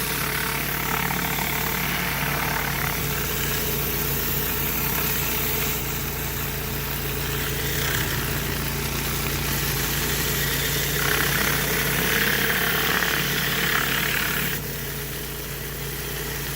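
Pressure washer's engine running steadily under the hiss of the water jet, which rises and falls as the spray moves, then drops off about fourteen and a half seconds in.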